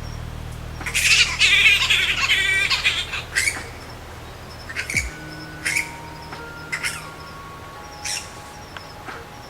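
Bats calling: short, sharp, high-pitched squeaks and chirps. A burst of rapid chattering comes about one to three seconds in, then single chirps follow roughly once a second.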